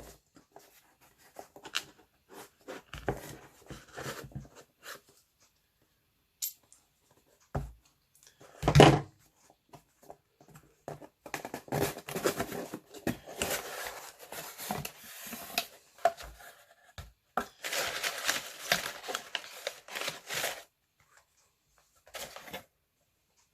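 Packaging of a pocket-knife box being opened by hand: scattered clicks and handling, a loud knock about nine seconds in, then two longer spells of rustling and tearing.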